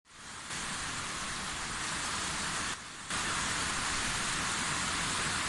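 Minoo Falls waterfall: water falling steadily into its pool, a dense rushing hiss. It fades in at the start and dips briefly just before three seconds in.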